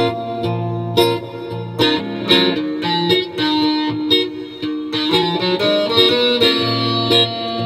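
Acoustic-electric guitar played through a looper pedal: picked notes ring over held, layered loop parts, with note attacks coming about every half second.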